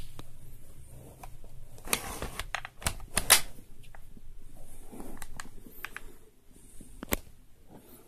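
Irregular clicks and knocks of a Drozd MP-661K air gun's plastic body and metal fittings being handled, with a quick run of clicks about two to three seconds in and one sharp click near the end.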